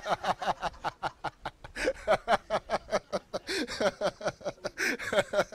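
A man laughing, a long run of short, quick bursts of laughter.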